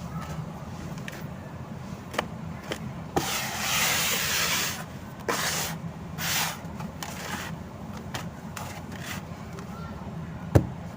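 Hardened sand-cement being crumbled: sharp cracks and stretches of gritty crackling hiss, with a loud snap near the end.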